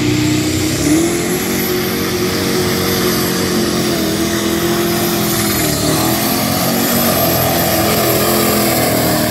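Engine of the pulling tractor 'Ruff Stuff' running at full power under load as it drags the weight sled, with a high whine that climbs in the first second or so and then holds.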